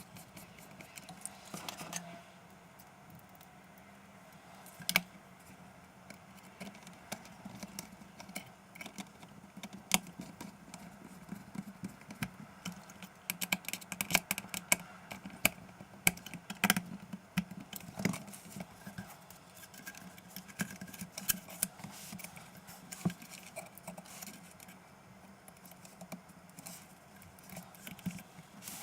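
Small parts and hand tools being handled on an open laptop: scattered light clicks and taps, busiest in the middle stretch, over a faint steady hum.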